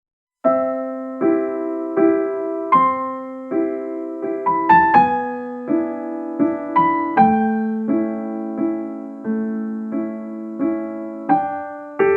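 Background music: a gentle piano melody, notes and chords struck one after another at an easy pace, each dying away.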